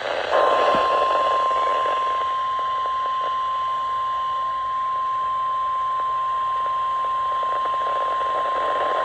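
NOAA Weather Radio 1050 Hz warning alarm tone: one steady, high, pure beep held for about nine seconds over radio static hiss. It is the alert signal that comes before a broadcast emergency message, here a severe thunderstorm watch, and it sets off tone-alert weather radios.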